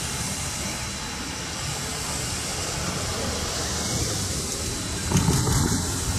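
Steam locomotive hauling a passenger train, working hard as it approaches, its exhaust a steady low rumble. A louder rush of noise comes about five seconds in.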